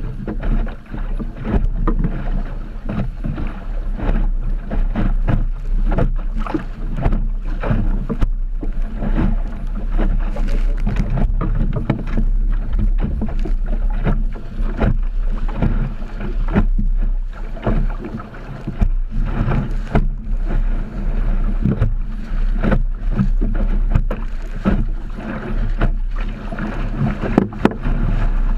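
Wind buffeting the microphone of a camera mounted in a small Optimist sailing dinghy, a loud, uneven rumble with irregular thumps. Under it is the rush and slap of choppy water against the hull as the boat sails in a strong breeze.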